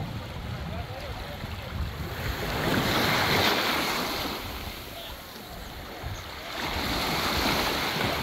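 Sea waves washing onto a rocky shore, the wash swelling twice, with wind buffeting the microphone.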